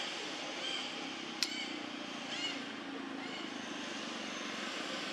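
Outdoor ambience: a steady hiss with short, high chirps repeating about once a second, and one sharp click about a second and a half in.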